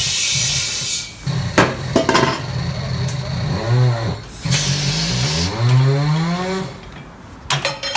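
Tire-shop tools at work while tires are mounted on rims: a hiss of compressed air, a few sharp knocks, then a machine motor whining up and down in pitch.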